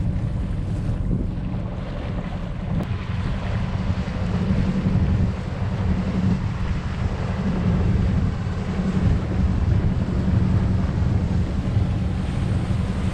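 Wind buffeting the microphone over the low, steady drone of a sailboat's engine motoring under way, with water rushing along the hull.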